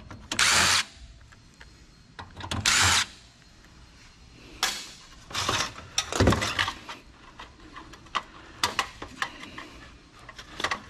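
Cordless drill/driver backing out screws from an old desktop computer case in two short half-second runs, followed by scattered clicks and knocks of metal parts being handled.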